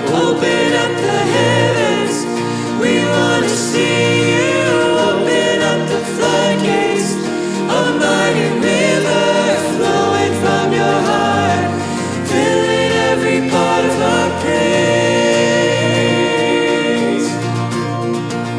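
Contemporary worship band singing a praise song: female and male voices singing together over strummed acoustic guitar and keyboard.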